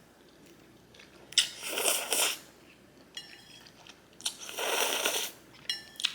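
Close-up eating of garlic noodles: two long slurps about three seconds apart, with a sharp click at the start of the first and chewing between them. A light utensil clink comes near the end.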